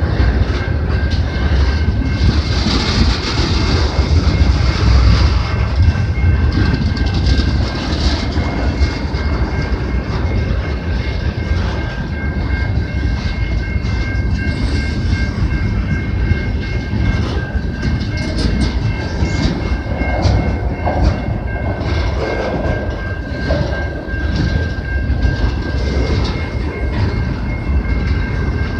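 Freight train cars rolling past, wheels clattering over the rail joints with a heavy steady rumble. A thin steady high whine from the wheels comes in about ten seconds in.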